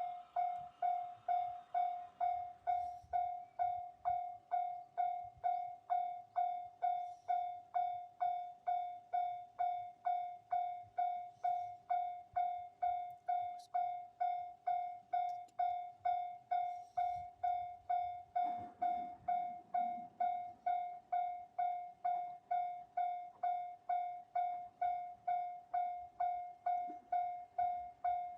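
Japanese railway level-crossing warning bell ringing 'kan-kan' in a steady, even rhythm of just under two strikes a second, each strike one clear ringing tone that fades fast. A brief low rumble joins it about eighteen seconds in.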